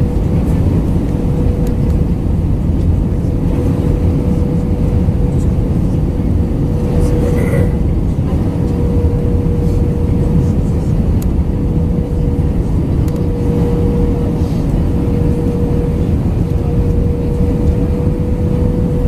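Cabin noise aboard an Airbus A319-112: a steady rumble with a constant hum tone running through it. A short, higher sound comes through about seven and a half seconds in.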